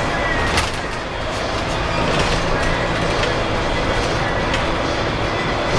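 Inside a Scania L94UB bus on the move, heard from the front: steady drive noise from its rear-mounted 9-litre six-cylinder turbo diesel and the road, with a few sharp clicks and rattles scattered through it.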